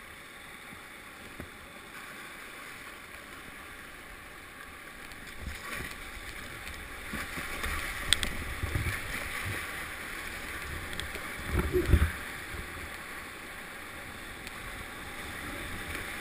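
Fast river water rushing and splashing around a whitewater kayak paddled down a flooded river, the rush growing louder about halfway through as the boat nears the rapid. A few dull thumps stand out, the loudest about twelve seconds in.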